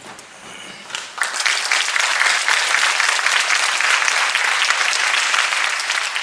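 Audience applauding, swelling about a second in and then going on steadily.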